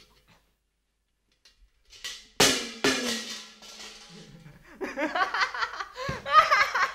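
Near silence, then two loud drum hits about half a second apart that ring on. From about five seconds in, a man laughs loudly.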